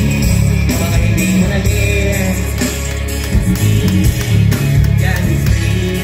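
Loud, bass-heavy music through a large outdoor stage PA system, with vocals on a microphone over it.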